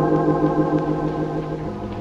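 Organ music holding a sustained chord, its lowest note dropping out near the end.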